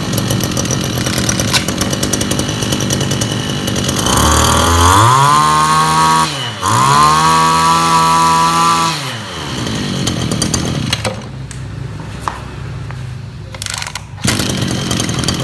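Stihl FR 2601 backpack brush cutter's 26cc two-stroke engine running on a test start. About four seconds in it is revved up high twice, with a brief drop in between. It then falls back to a low idle and picks up again near the end.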